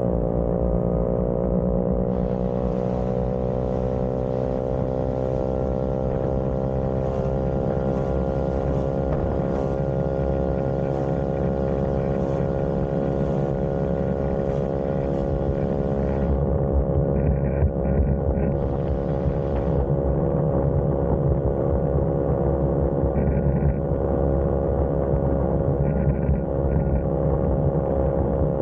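Vespa scooter engine running steadily under way, a continuous droning note that climbs slightly in pitch over the first few seconds and then holds, over a low rumble.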